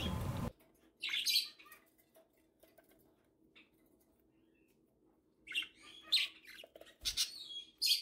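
Budgerigars chirping: a short call about a second in, then a run of several quick chirps and warbles in the last few seconds, with faint clicks between.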